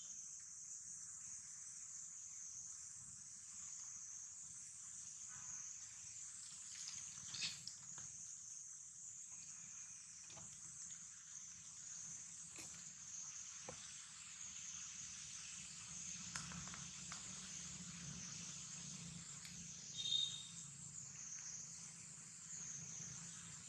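Steady, high-pitched chorus of insects, slightly wavering, with a few faint clicks and rustles. A brief high chirp about twenty seconds in is the loudest moment.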